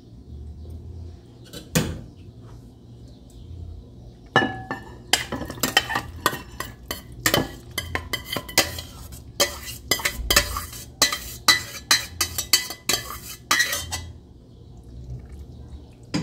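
Metal spoon clanking and scraping against a stainless-steel pot and a glass baking dish as saucy pasta is spooned from one into the other. A single clink about two seconds in, then a quick run of clinks and scrapes from about four seconds in, stopping shortly before the end.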